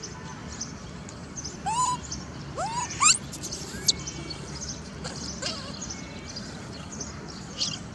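Baby macaque giving three short calls that rise in pitch, about two to three seconds in, the last one the loudest and sweeping up highest, over a faint background of high chirps.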